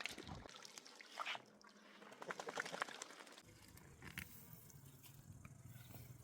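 Faint irregular clicks and quick runs of crackling, giving way about three and a half seconds in to a low steady hum with only a few scattered clicks.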